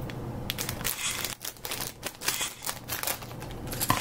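Clear plastic Lego parts bag crinkling and rustling in the hands as it is handled and opened, in a string of irregular crackles.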